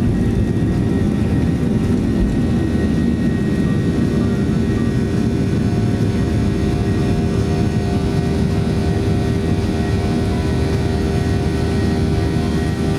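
Boeing 737-800 cabin noise: the CFM56-7B turbofan engines running at a steady setting, heard from inside the passenger cabin as a constant rush with a few steady hums.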